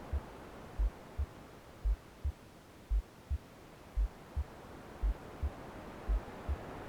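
Womb-style heartbeat soundscape: a deep, slow double thump (lub-dub) about once a second over soft white noise. The hiss dies down in the middle and swells again near the end.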